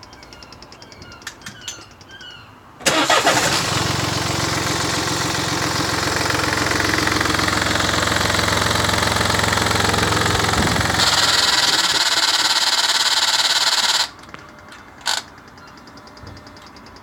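2015 Mini Cooper D (F56) three-cylinder diesel engine starting about three seconds in, running for several seconds, then going quiet, with the sound cutting off abruptly near the end. With the engine off, before and after the run, a fast, even, faint clicking comes from the engine bay: the strange clicking this car makes after it is switched off.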